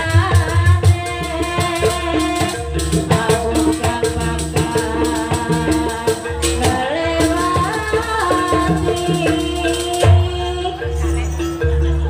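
Live jaranan music from a Banyuwangi gamelan-style ensemble: repeated drum and gong strokes under a held melody line that slides up and down, with steady rattling percussion.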